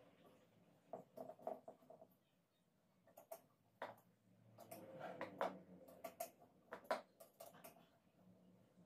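Faint, scattered clicks and light taps of small metal parts being handled: bolts and fittings going onto a bicycle suspension fork and its shock absorber. The clicks come irregularly, with a quiet gap about two seconds in.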